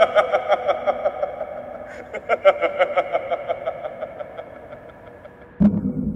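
A man laughing hard in two long bouts of rapid ha-ha-ha, the second starting about two seconds in and trailing off. A sudden low hit near the end cuts it off.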